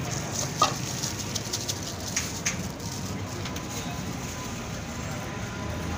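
A few sharp, irregular clicks and scrapes of a knife against a steel tray of shawarma chicken, over a steady hiss.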